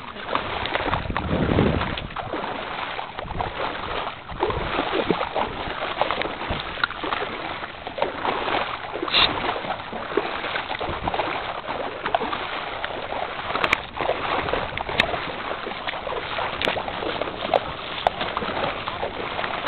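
Feet wading through shallow seawater, with steady sloshing and irregular small splashes.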